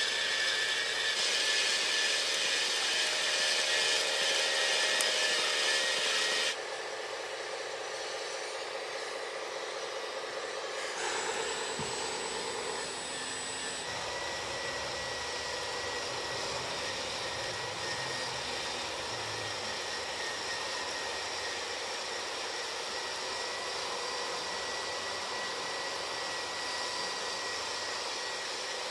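A model soil conveyor running, with soil pouring off its belt: a loud, steady whirring mixed with the hiss of falling earth. About six seconds in, it cuts to a quieter, steady, thin electric whine from a radio-controlled Caterpillar excavator working beside a Cat D25 articulated dump truck while it loads the truck.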